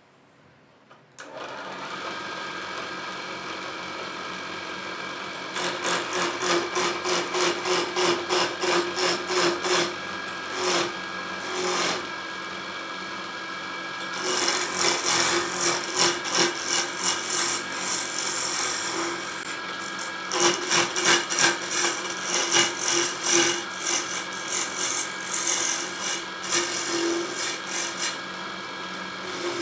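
Wood lathe motor switching on about a second in and running with a steady hum. Then a hand turning tool cuts into the spinning wooden blank in several long bouts of rapid scraping and rattling, as the square blank is roughed down to round and shaped.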